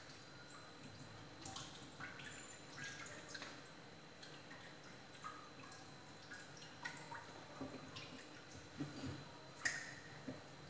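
Faint water splashing and dripping as leafy greens are swished by hand in a bowl of water and lifted out into a colander, with scattered small clicks and one sharper tap near the end.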